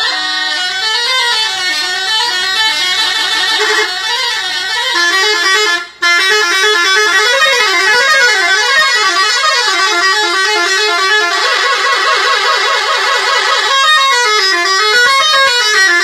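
Bus telolet horn, a multi-tone musical horn, playing a rapid up-and-down melody of stepped notes. The melody cuts out for an instant about six seconds in, breaks off for a couple of seconds later on, and comes back near the end.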